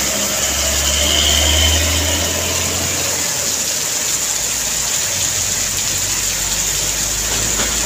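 Heavy rain pouring down steadily, with a truck's engine rumbling low as it crosses; the rumble is loudest about one to two seconds in and fades by about three seconds.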